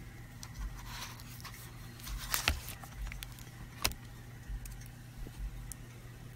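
Faint handling noise from the opened laptop: a few light clicks and taps, the sharpest just before four seconds in, over a low steady hum.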